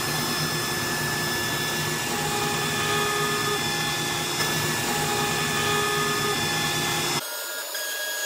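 Air-cooled ER32 CNC router spindle running at high speed, its pointed V-bit cutting a shallow slot into a wooden frame: a steady whine with several high tones over the cutting noise. About seven seconds in the sound changes abruptly to a thinner, higher whine with almost no low rumble.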